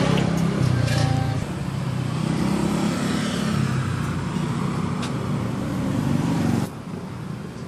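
Street traffic: motor scooter and car engines running past with a steady low hum, and a few sharp clicks. The sound drops off abruptly near the end.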